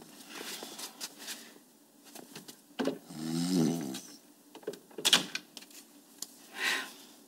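Quiet rustling and clicks of someone rummaging through a drawer or box, with a sleeping man snoring once about three seconds in and a sharp click about five seconds in.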